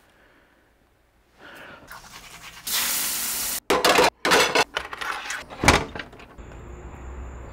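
A quick run of household sounds: a few seconds of steady rushing noise, then short clattering and scrubbing strokes as a metal frying pan is handled in a sink. A sharp knock follows, like a door-knob lock being turned, and then a steady low hum.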